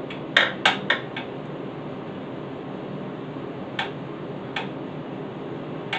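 Short, sharp clicks and taps of a steel brake rod and its fittings being worked into a garden tractor's brake linkage: three quick ones in the first second, then two more around four seconds in. A steady shop hum runs underneath.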